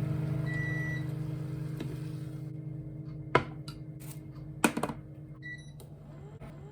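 Kitchen appliance beeping: a short high electronic beep, two sharp clicks, then another brief beep, over a steady low hum that slowly fades.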